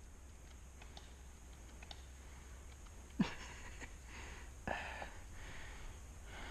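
A person breathing and sniffing close to the microphone, two short noisy breaths about three and four and a half seconds in, with faint scattered clicks before them.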